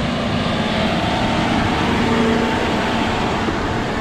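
John Deere tractor pulling a loaded manure tanker past at close range, its diesel engine running steadily.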